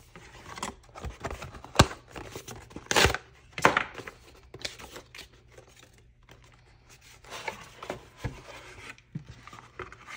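Cardboard and plastic packaging being handled and opened by hand: rustling and scraping as a small cardboard box is slid out of its plastic-fronted sleeve, with scattered sharp knocks, the loudest about two seconds in, then the box's lid being opened.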